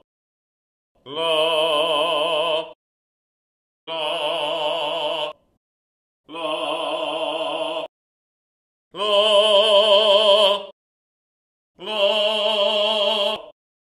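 A man singing a series of sustained single notes with vibrato, five of them, each about a second and a half, separated by short pauses; the last two are higher. They are range-test notes, picked up by a condenser microphone several metres away.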